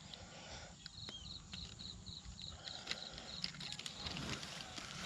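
Footsteps and light rustling with scattered sharp clicks, while an insect chirps in short even pulses, about five a second, from about a second in for around two seconds.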